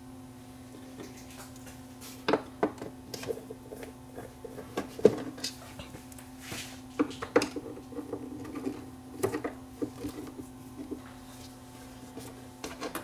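Screwdriver taking screws out of a turntable's composite bottom cover: scattered small clicks and taps of the tool, the screws and the plastic base being handled, over a steady low hum.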